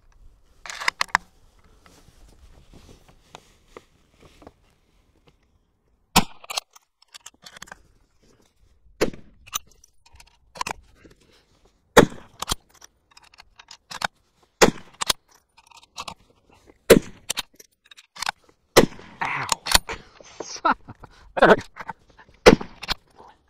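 A .308 Winchester rifle fired in a quick string from a bench, a sharp report every couple of seconds starting about six seconds in, with the bolt worked between shots.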